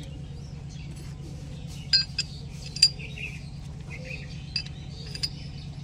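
Steel parts of a Swaraj 855 tractor differential clinking together as they are handled and fitted: the spider cross, pinion gears and thrust washer knocking against the crown wheel and case. About five sharp metallic clinks, from about two seconds in, over a steady low hum.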